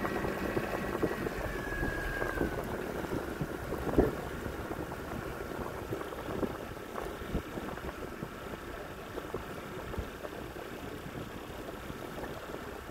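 Boat motor running under way, its high whine dropping in pitch about two seconds in, with water and wind noise around it. A single sharp knock comes about four seconds in.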